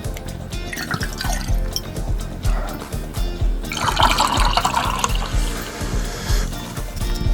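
Background music with a steady beat, and a liquid splashing sound about four seconds in, like a drink being poured.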